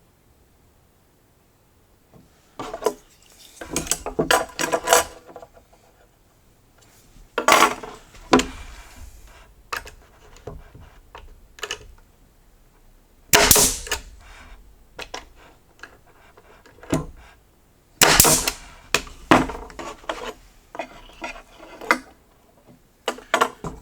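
Pneumatic 18-gauge brad nailer firing headless pins into a thin wooden strip: three sharp shots spaced several seconds apart, the first followed by a short hiss. Between the shots come knocks and clacks of wood and tools being handled.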